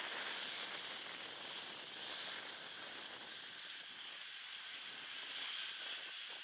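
Wind and small waves washing onto the beach, heard as a steady hiss. The low end is thinned by noise removal and a high-pass filter.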